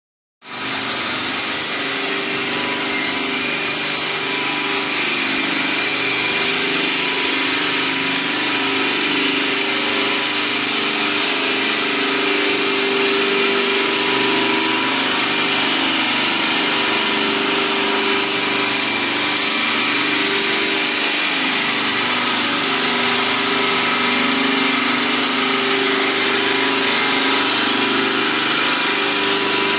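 Stone polishing machine running steadily: an even motor hum with a constant hiss over it.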